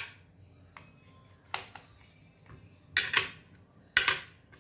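Metal knife cutting through a soft potato-egg pancake and scraping against a plastic leaf-shaped plate: three short scrapes, about a second and a half in, around three seconds in and near the end.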